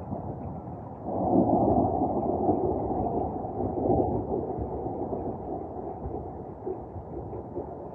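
Thunder rumbling: a deep roll that starts suddenly about a second in, is loudest for the next few seconds, then slowly dies away over a steady low background noise.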